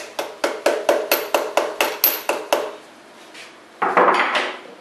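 Hand ratchet clicking in even strokes, about five a second for some two and a half seconds, as the connecting-rod cap bolts are run down on a Chrysler 440 big-block. A short metallic clatter of tools follows near the end.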